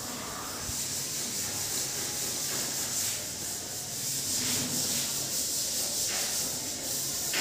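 Steady rubbing against a textured painted wall, under a constant high hiss.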